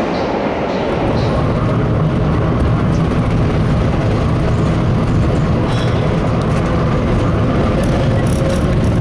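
Vintage IRT Lo-V subway car running through a tunnel, heard on board: a steady, heavy rumble of wheels and running gear on the rails with a faint steady whine. For the first second it is the tail of the train passing a station platform.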